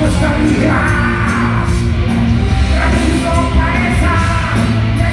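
Live hard rock band playing loudly, with electric guitars, drums and a male singer, heard from the audience in a large concert hall.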